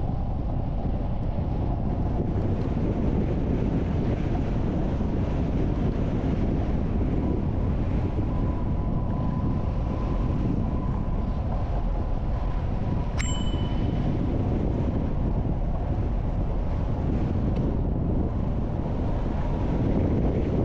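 Wind buffeting the microphone over the steady low rumble of a bicycle rolling on a gravel path, with one short metallic ding about two-thirds of the way through.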